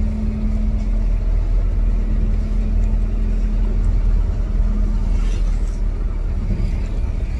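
Car driving along a road, heard from inside the cabin: a steady low engine and road rumble, with a steady hum that drops away about two-thirds of the way through.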